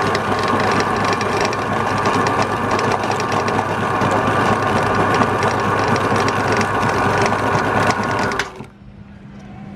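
Electric meat grinder running steadily with a dense mechanical whir as it grinds snacks, cutting off abruptly about eight and a half seconds in, after which only a low steady hum remains.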